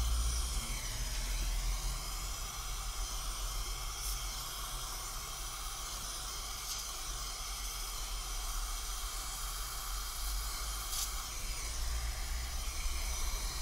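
Gas brazing torch burning with a steady hiss as its flame heats a copper-to-aluminium tube joint.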